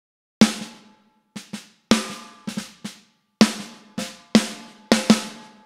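Recorded snare drum track played on its own: a groove of sharp snare hits with softer hits in between, each ringing briefly. It runs through a fast-attack compressor, so gain reduction clamps down on each hit right away.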